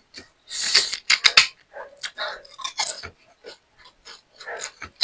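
Close-up chewing of a mouthful of food, with wet smacking mouth clicks coming in uneven bursts.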